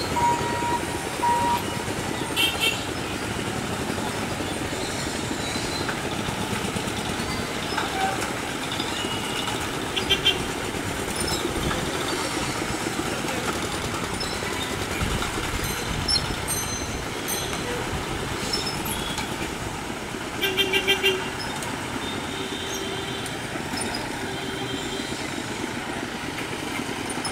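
Mixed road traffic of motorcycles, e-rickshaws and light trucks moving with a steady drone, with short horn beeps now and then and a quick run of several beeps about twenty seconds in.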